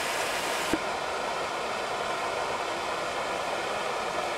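Small waterfall splashing over boulders into a pool: a steady rush of falling water. About a second in it changes abruptly in tone, with a brief thump.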